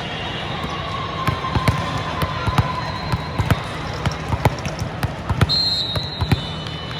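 Volleyballs being struck and bouncing in a large hall: a scattered string of sharp slaps and thuds, about a dozen, over a steady background of crowd noise.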